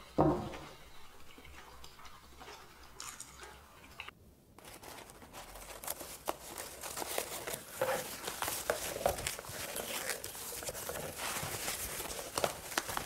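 A knock of a wooden spoon against a wooden bowl right at the start. Then, from about five seconds in, a steady run of rustling and crinkling as twine is untied and white packing paper is unwrapped in a cardboard box.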